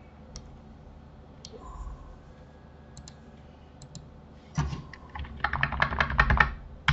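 Computer keyboard keys being pressed: a few single clicks, then a quick run of keystrokes about four and a half seconds in.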